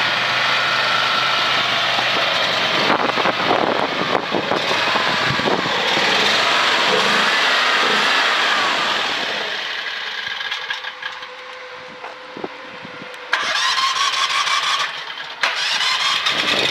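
Mini skid steer's small engine running, with whining tones that rise and fall. It drops away for about three seconds past the middle and comes back suddenly.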